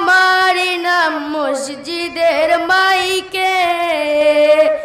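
A boy singing a Bengali gazal solo into a handheld microphone, in long held notes that bend and slide in pitch.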